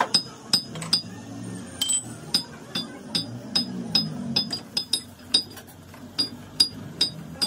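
Light metal-on-metal taps, about two to three a second, each with a short bright ring, over a faint low hum.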